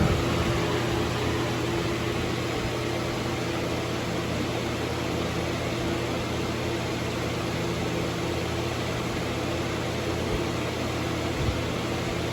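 Holmes HABF-25 20-inch box fan running on high speed: a steady rush of air over a low motor hum.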